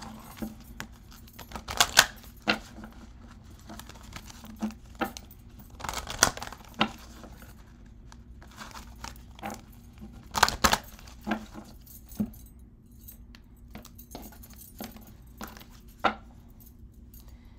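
A deck of oracle cards being handled and shuffled by hand: irregular rustles, snaps and clicks of the cards, with metal bangles and rings jangling now and then.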